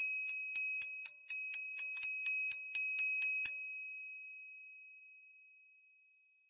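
Small brass bell struck rapidly about four times a second, around fifteen strikes in all, giving a high, bright ringing tone. After the last strike the ring fades away over about two and a half seconds.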